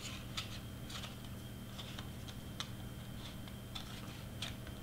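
Faint ticks and rustles of cut cardstock pieces, a white layer and a black glitter cardstock flower, being handled and fitted together by hand, over a steady low hum.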